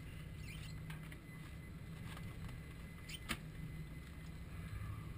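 Boat engine running, a steady low rumble, with a single sharp knock a little over three seconds in.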